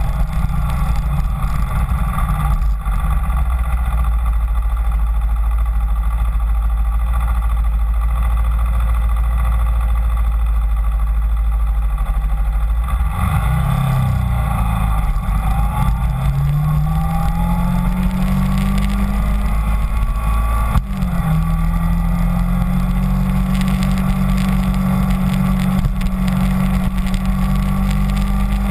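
Kawasaki Ninja 250's parallel-twin engine running while riding. It holds a low, steady note for the first dozen seconds, then pulls away with a rising pitch. Its note drops sharply at a gear change about two-thirds of the way in, then settles to a steady higher note.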